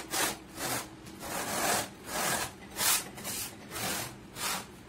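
Rasping strokes of something rubbed back and forth by hand along a green marble border strip, about two strokes a second, some longer than others.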